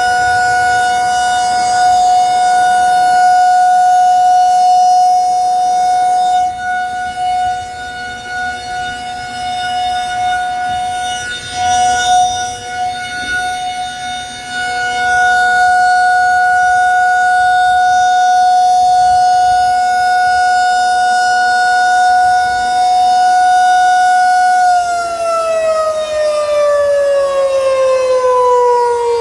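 Outdoor tornado warning siren sounding its weekly test: one steady, loud held tone that fades for several seconds in the middle and comes back. Near the end it begins winding down, its pitch sliding steadily lower.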